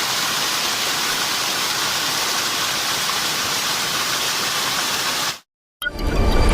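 Waterfall rushing, a steady hiss of falling water that cuts off suddenly about five seconds in, followed shortly by music starting.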